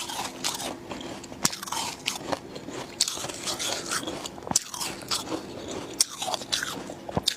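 Close-miked biting and chewing of snowy humidifier frost: irregular sharp crunches and crackles as the frost is bitten and chewed.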